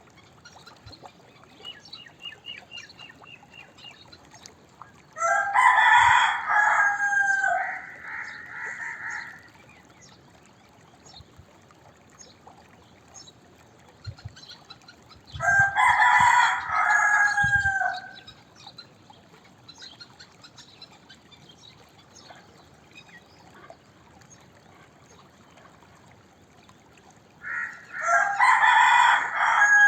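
Domestic rooster crowing three times, each cock-a-doodle-doo lasting about three seconds, spaced roughly ten to twelve seconds apart. The third crow begins near the end.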